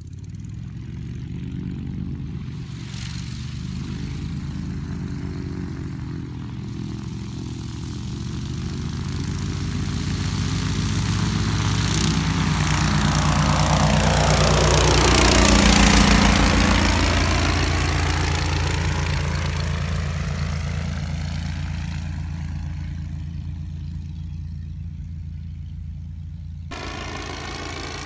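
Powered parachute's engine and propeller running steadily as it flies past low. It gets louder on the approach, is loudest about sixteen seconds in as it passes close, then fades as it climbs away.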